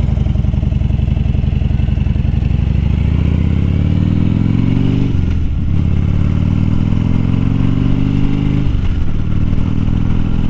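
A 2014 Harley-Davidson Dyna Fat Bob's air-cooled V-twin engine pulls away under acceleration. Its pitch holds low at first, then rises through the gears, with a brief drop at an upshift about five seconds in and another about nine seconds in.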